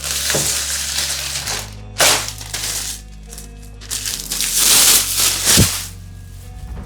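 Crinkling and rustling of packaging as cleaning supplies are handled, in three bouts with a sharp click in the last one, over background music.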